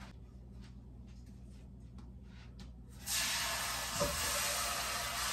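A hot metal frying pan hissing and steaming as tap water hits it in the sink; the loud hiss starts suddenly about three seconds in and keeps going, with a soft knock about a second later. Before it there is only faint handling noise.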